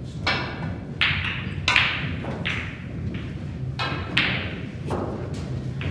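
Snooker shot: the cue strikes the cue ball and the balls click together on the table, among a run of sharp knocks about every half to one second, each trailing off in a short hiss.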